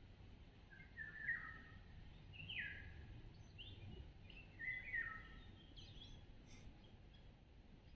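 Wild birds calling: a series of short, downward-sliding whistled notes, several in quick run-ups, spaced a second or so apart, with a few fainter high notes after them, over a low steady background rumble.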